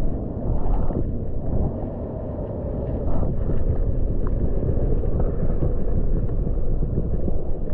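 Muffled low rumble of water moving around a camera held underwater, with a few faint crackles and clicks.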